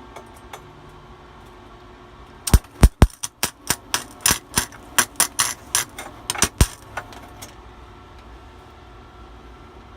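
Wire-feed welder's arc sputtering: a run of irregular sharp pops and crackles, several a second, starting about two and a half seconds in and stopping about five seconds later. The arc keeps catching and breaking rather than burning steadily.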